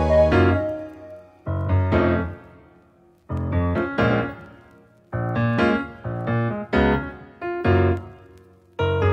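Background music of piano chords, each struck and left to fade, with short, almost silent gaps between phrases.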